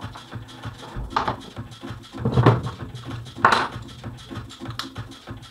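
Hand tools and small metal motorcycle parts being handled: irregular knocks, clinks and rattles, the loudest about two and a half and three and a half seconds in.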